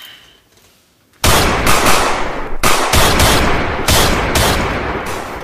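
A string of loud gunshots, about a dozen in quick clusters, with a ringing tail after each, starting about a second in after the music cuts out.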